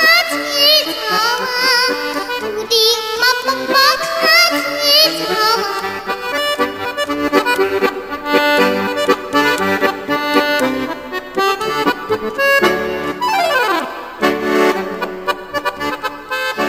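A young girl singing with a wavering vibrato over a lively instrumental accompaniment, giving way after about six seconds to an instrumental interlude, with a falling run of notes near the end.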